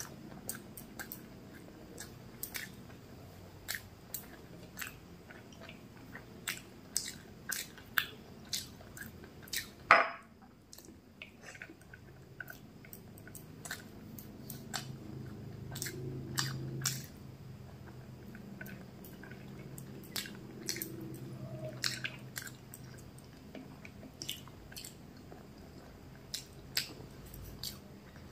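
Close-miked chewing of a hand-eaten mouthful of rice and cooked greens, with wet lip smacks and mouth clicks scattered irregularly. The loudest smack comes about ten seconds in.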